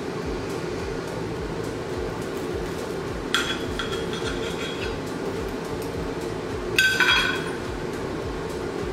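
Knife and fork clinking against a plate as an egg roll is cut in half: two short clinks, about three seconds in and again about seven seconds in. Underneath is the steady hum of a loud room air conditioner.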